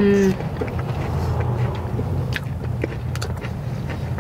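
People chewing mouthfuls of soft cream-filled donut, with small wet mouth clicks, over a steady low rumble. It opens with a brief hummed "mm".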